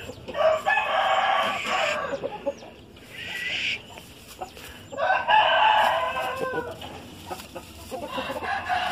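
Gamecocks crowing: two long crows of about two seconds each, one just after the start and one about five seconds in, with shorter rooster calls between and near the end.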